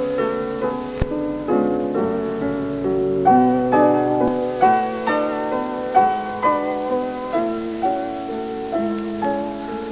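Slow piano music: a melody of struck, decaying notes about twice a second over held lower notes.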